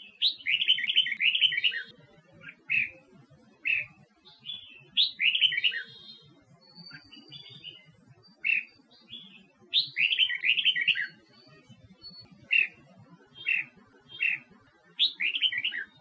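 Red-whiskered bulbul singing: four short bursts of rapid warbled notes, about five seconds apart, with single clear call notes between them.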